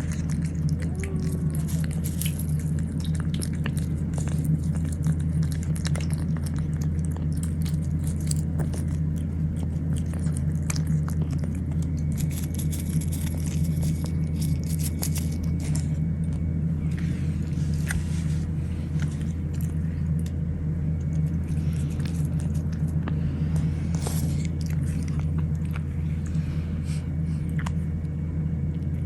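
A cat chewing and biting its food, with many small irregular clicks, over a steady low hum.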